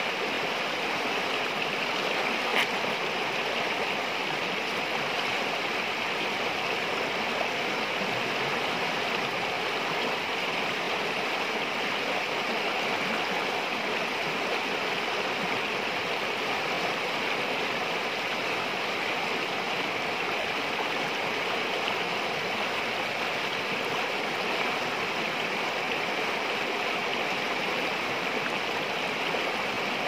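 River rapids running fast over and around boulders: a steady, even rush of water. One short click stands out about two and a half seconds in.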